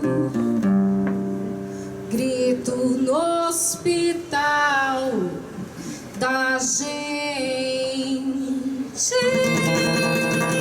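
Live acoustic music: an acoustic guitar accompanying a voice that sings a slow melody in long, held notes, with the guitar strumming more fully near the end.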